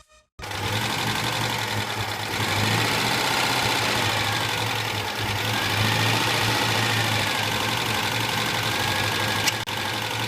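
Citroën 2CV6's air-cooled flat-twin engine running steadily at an even speed.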